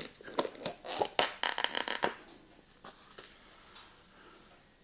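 A spoon scraping and tapping against a container as sour cream is scooped out: a quick run of sharp clicks and scrapes over about two seconds, then only faint handling.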